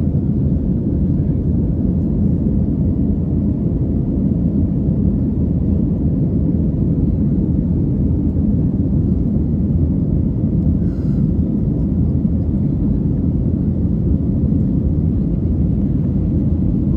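Steady low rumble of an airliner cabin in flight: engine and airflow drone, even and unchanging.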